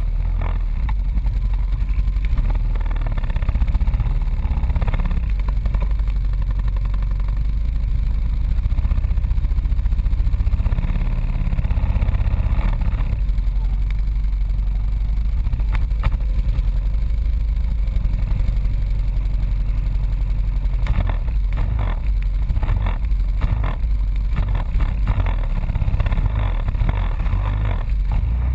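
ATV engine running as it drives through a muddy bog trail, heard from the machine itself as a loud, steady low rumble. Short knocks come once about halfway through and several times near the end.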